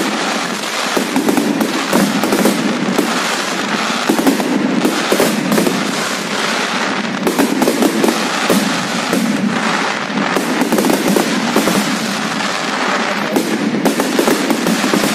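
Aerial fireworks display: a dense, unbroken barrage of bangs and rapid crackling from many shells bursting at once, with no pause.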